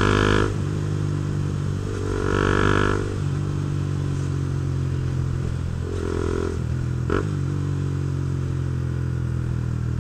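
Honda CB Twister's single-cylinder engine running through a Protork Mine 3 aftermarket sport exhaust while riding, the throttle opening up and easing off a couple of times. A short click comes about seven seconds in.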